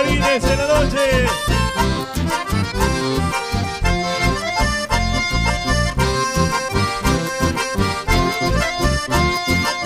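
Live folk band music led by two button accordions, with strummed acoustic guitars over a steady, pulsing low beat.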